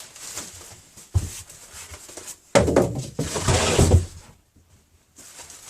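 Cardboard box and packing scraping and rubbing as a boxed air compressor is worked out of it, with a knock about a second in and a sharp thump followed by a loud stretch of scraping from about two and a half to four seconds.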